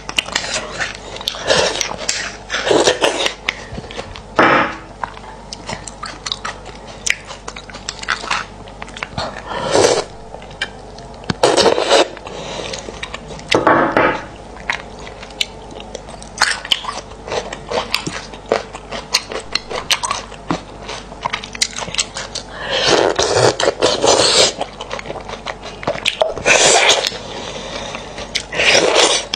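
Close-miked eating of braised beef bone marrow: loud wet slurps every few seconds as the marrow is sucked out of the bone, with chewing and small wet mouth clicks between them.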